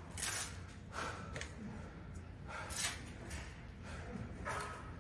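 A person breathing hard through the nose and mouth, with about four short, noisy breaths a second or more apart, over a low steady room hum.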